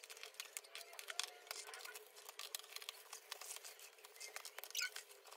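Metallic gold gift-wrapping paper being torn and crinkled open by hand: faint, dense crackling and rustling.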